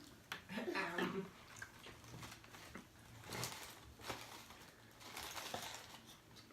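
Quiet eating sounds: scattered soft clicks and rustles of someone eating shrimp, with a brief low vocal sound about half a second in.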